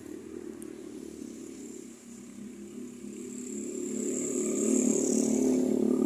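Motorcycle engine running and approaching, growing steadily louder.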